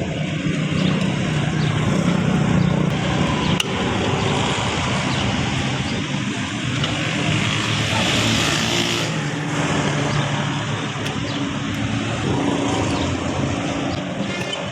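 A motor vehicle engine running with a steady low drone, over road traffic noise, with a brief hiss swelling up about eight seconds in.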